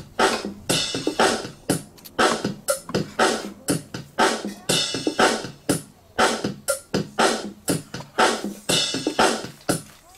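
Background music with a steady electronic drum beat.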